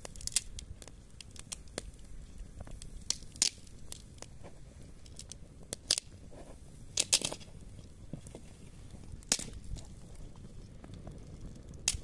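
Freshly lit fire of dry straw, twigs and split logs crackling as it catches, with a handful of sharp snaps and pops at irregular intervals.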